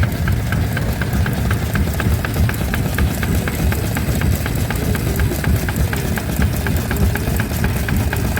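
Vintage stationary engine running steadily, a deep low rumble with a rapid, regular light ticking over it.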